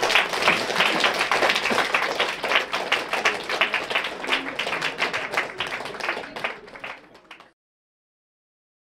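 Audience applauding, thinning out after about six seconds, then cut off into complete silence near the end.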